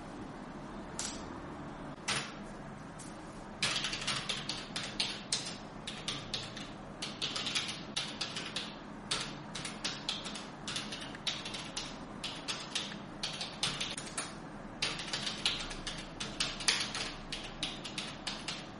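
Typing on a slim external computer keyboard: a quick, irregular run of key clicks that starts a few seconds in, after two lone clicks.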